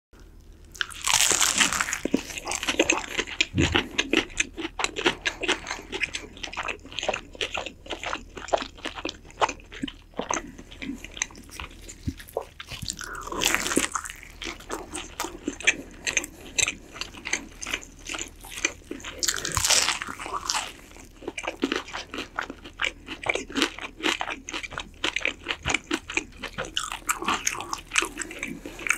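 Close-up eating of rotisserie chicken: steady wet chewing and biting with many small clicking mouth noises. A few louder crunching bites come about a second in, around the middle, and near the end.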